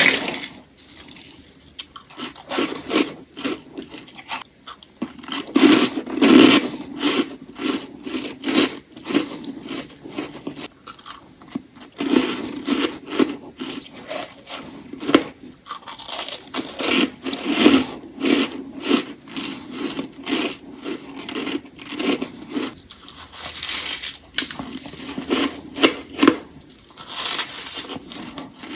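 Soft, powdery freezer frost crunching close to the microphone: a long run of short, irregular crunches, one or two a second, with a couple of brief pauses.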